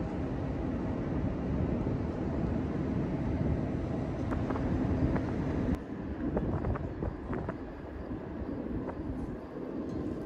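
Steady low rumble and hum of the bulk carrier Federal Welland's engine and machinery, heard close alongside its hull. About halfway through the sound changes suddenly and the rumble turns more uneven, with a few light ticks.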